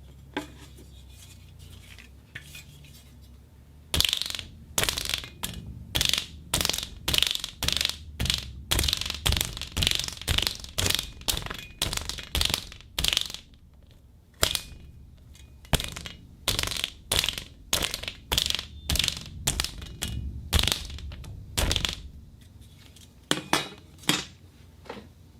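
Rubber worked by hand as a foley sound: a quick series of short, sharp rubbery strokes, about two a second, starting a few seconds in, with a brief pause midway and a few last strokes near the end.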